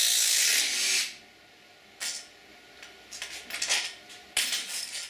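Hand tools working on a Briggs & Stratton lawn tractor engine during teardown. A loud rushing noise lasts about a second and a half. It is followed by several short bursts of metallic clicking and rattling.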